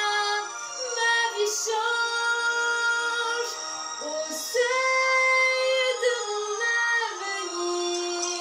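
A woman singing a slow ballad in a clear, high voice, holding long notes and gliding between them.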